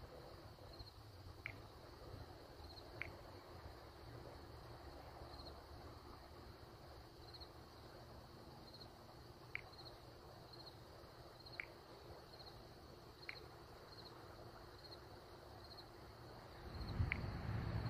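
Faint insects chirping outdoors at night: short high chirps repeating about once a second, with a few sharper ticks every couple of seconds over a steady low hum. A louder low rumble rises near the end.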